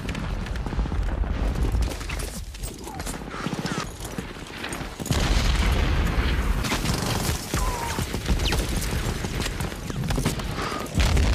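Battle soundtrack of rapid machine-gun and rifle fire, with heavy explosion booms about five seconds in and again near the end.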